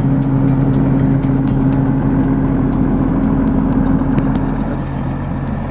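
A heavy machine's engine running steadily, with a constant low hum.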